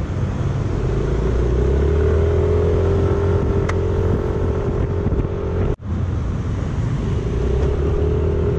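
Yamaha motor scooter's engine running steadily while riding, with road and wind noise. The sound cuts out for an instant about two thirds of the way through.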